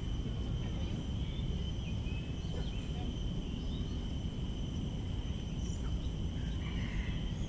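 Tropical garden ambience: a steady high insect drone over a continuous low rumble, with a few faint, short bird chirps scattered through it.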